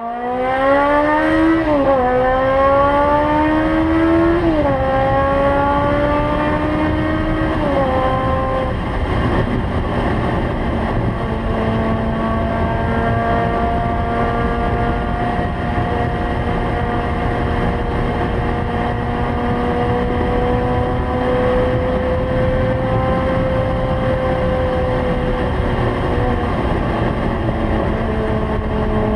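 Honda CBX 750F's air-cooled inline-four revving hard under full acceleration. The pitch climbs and drops back at three upshifts in the first eight seconds, then holds nearly steady at high speed, around 220 km/h, over a constant rushing noise.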